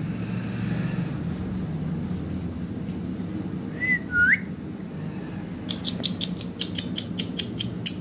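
Two short whistled notes from a pet parakeet about four seconds in, the second dipping and then sweeping sharply upward. Near the end comes a quick run of about a dozen sharp clicks, over a steady low background hum.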